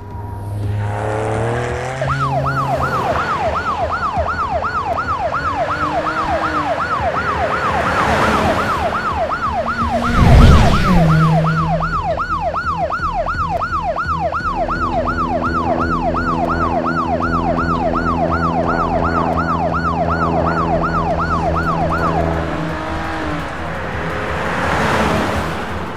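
Police car siren wailing rapidly up and down, about twice a second, over a low steady drone. A loud whoosh comes about ten seconds in, and the siren stops a few seconds before the end.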